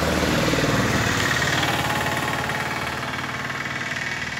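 A motor vehicle's engine running, loudest about a second in and then slowly fading away.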